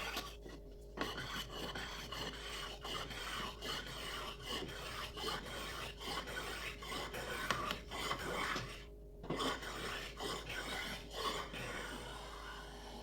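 A sonokeling rosewood saw handle being shaped by hand with rough back-and-forth abrading strokes, about two a second. There are short breaks about a second in and again around nine seconds in.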